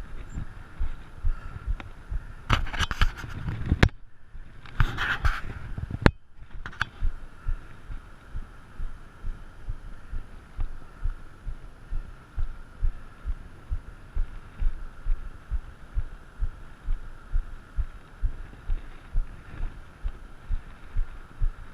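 Rhythmic low thumping, about two to three beats a second, over a steady hiss as a mountain bike is ridden with the camera mounted on it or on the rider. A few short bursts of rustling noise come a few seconds in.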